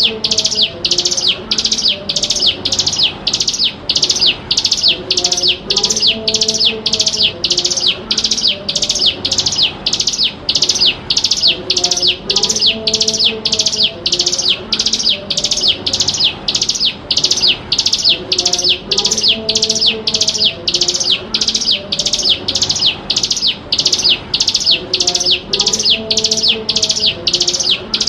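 Ciblek gunung, a prinia, calling in a fast, unbroken series of high, sharp notes that each sweep downward, about two a second.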